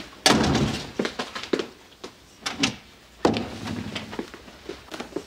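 A door opening and shutting, with a few knocks and thuds around it.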